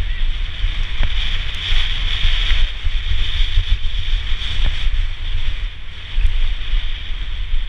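Wind buffeting the microphone of a helmet camera on a downhill mountain bike at speed, with rumble from the tyres rolling over a dirt track and a steady high hiss.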